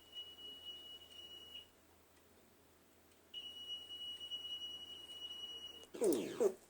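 Alarm tone presented as a country's emergency alert (EAS) signal, played back from a recording: a steady high-pitched beep held for about two seconds, a pause, then the beep again for about two and a half seconds. Near the end comes a brief, louder sound sweeping down in pitch. The tone is judged a fake rather than a real alert.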